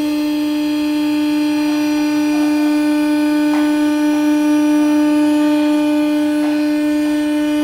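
CNC router spindle motor running at a steady high speed, giving one constant whine with a few faint ticks.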